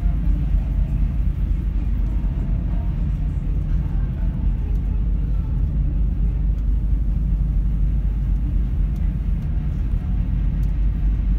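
Car ferry's engines and hull giving a steady low drone, heard from inside the passenger cabin.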